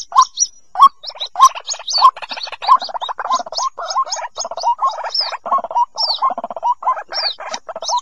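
White-breasted waterhen chicks calling for the parent: rapid high peeps over lower, harsh chattering notes that thicken into a dense, continuous churring chorus about a second in.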